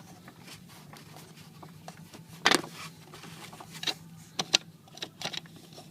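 Scattered sharp clicks and knocks of metal parts being handled while a seat-mounting bolt is loosened by hand, the loudest about halfway through and several more close together near the end, over a faint steady hum.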